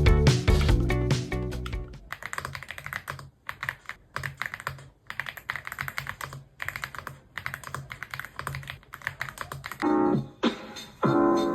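Typing on an Aula F75 mechanical keyboard: quick runs of keystrokes broken by short pauses. Background music is loud for the first couple of seconds, stays faint under the typing, and swells again with piano near the end.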